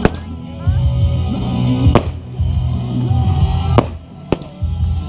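Fireworks going off in four sharp bangs, at the start, about two seconds in, and twice close together near the end, over loud music with a heavy bass line.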